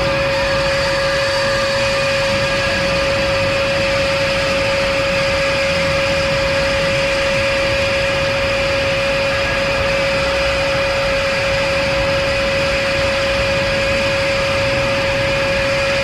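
Noise-improvisation drone: a dense, unchanging wall of hiss with one loud steady mid-pitched tone held through it and fainter high tones above.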